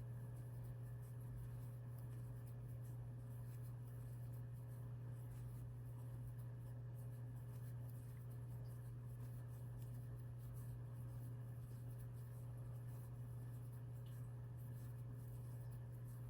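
Faint scratching and rubbing of yarn being worked with a crochet hook while single crochets are stitched, over a steady low hum.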